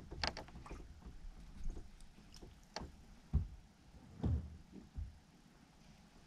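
A handful of soft knocks and low thumps, spaced about a second apart, from an angler shifting his feet and handling his rod on the deck of a fishing boat.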